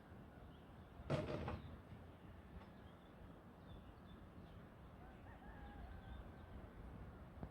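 Quiet countryside ambience with faint bird chirps, and a brief louder sound of about half a second about a second in.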